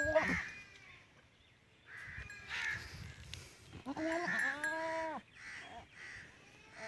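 Crows cawing repeatedly in the background. A goat bleats once, a drawn-out call of about a second whose pitch rises and falls, a little past the middle.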